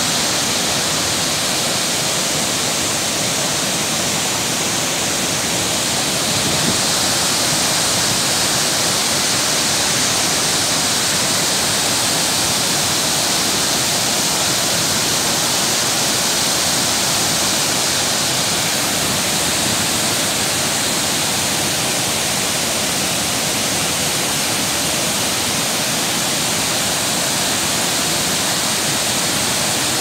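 Steady, loud rush of a wide multi-tiered waterfall pouring over rock ledges into a pool.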